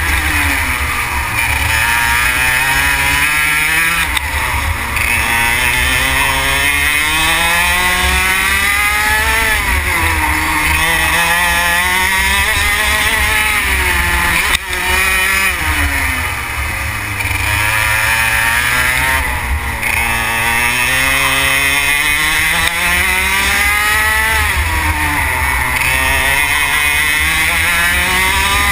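Racing kart engine heard onboard, its revs climbing steadily for a few seconds and then dropping off sharply, about six times over, as the kart accelerates out of corners and slows for the next.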